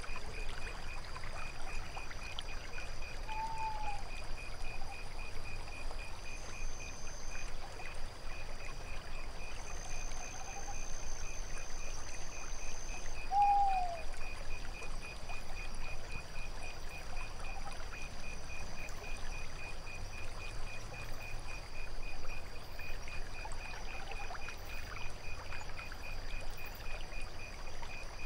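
Night lake-and-forest ambience: water trickling steadily under crickets chirping in an even rhythm and a high insect drone. A short falling call sounds about three seconds in and again about thirteen seconds in.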